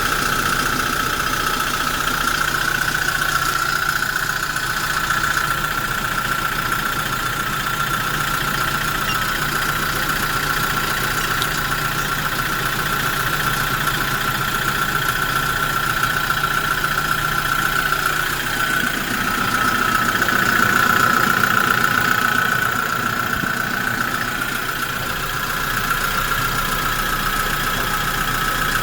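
Kia Bongo refrigerator truck's engine idling steadily, with a constant high whine over the engine hum. About two-thirds of the way through, the low hum changes and the sound grows briefly louder.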